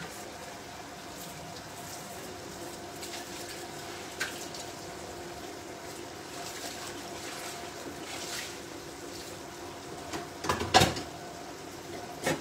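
Frying pan of tomatoes in an oily parsley-and-garlic sauce simmering and sizzling on the hob, with small crackles over a faint steady hum. About ten seconds in comes a brief clatter of knocks, the loudest sound.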